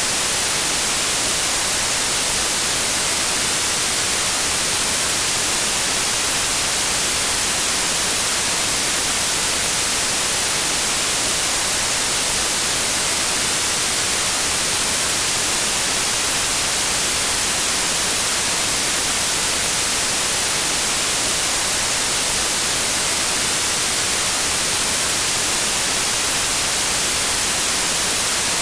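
Steady white noise: a constant, even hiss, strongest in the treble, with no change in level or pitch.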